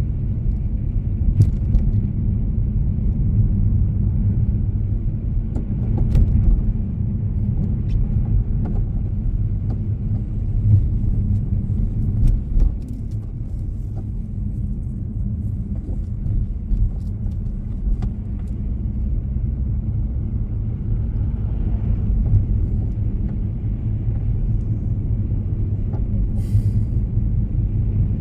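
Steady low rumble of a road vehicle in motion, with a few faint ticks and knocks scattered through it.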